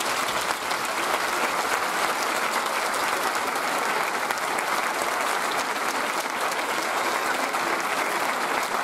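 Audience applauding steadily, a dense, even clapping from a full hall.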